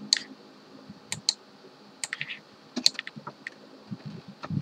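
Computer keyboard keys clicking in scattered keystrokes, single and in pairs, with pauses between them.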